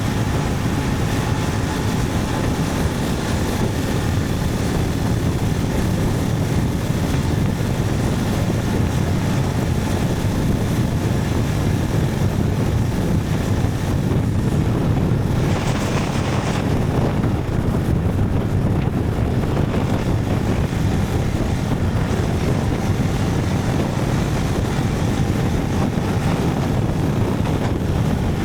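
Motorcycle riding at a steady speed: a constant rush of wind noise on the microphone over the low drone of the engine and road, with no changes in pace.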